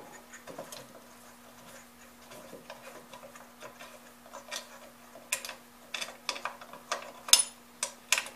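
Small metal clicks and ticks as a wing nut is unscrewed by hand from the back of a vintage edger/trimmer's motor housing. The clicks are sparse at first and come quicker and louder after about four seconds, with the sharpest one near the end.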